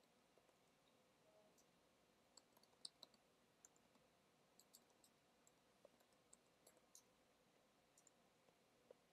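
Faint, irregular clicks of computer keyboard keys as code is typed, over near silence.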